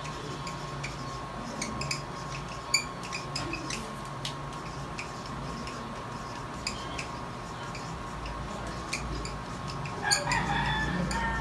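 Marker pen squeaking and tapping in short strokes on a laminated paper chart as words are written. About ten seconds in, a rooster crows.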